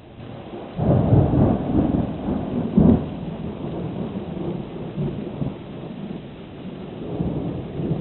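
Thunder rumbling loudly, building about a second in to a sharp clap about three seconds in, then rolling on lower and swelling again near the end.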